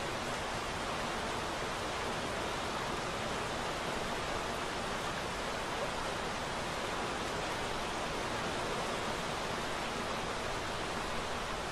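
Steady, even rushing noise of rain and surf, with no breaks or changes.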